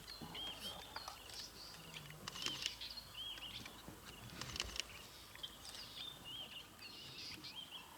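Faint birdsong: many short, repeated arched whistles and chirps from several birds, with a few soft clicks.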